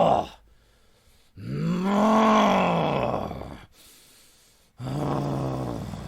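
A man's voice groaning in long, drawn-out moans. One trails off just as it starts, a long groan rises and falls in pitch about a second and a half in, and a lower one comes near the end.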